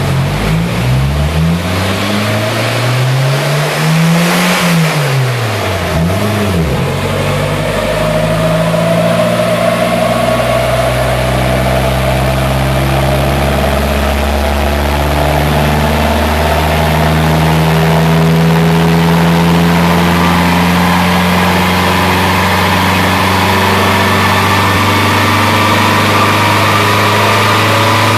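VW Golf Mk2 engine revved up and down about three times in the first seven seconds, then running steadily at a fairly even speed.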